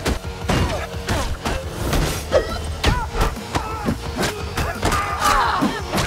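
Action-film fight sound effects: a fast run of punch, kick and body-impact thuds, about two a second, over music, with some shouts and grunts.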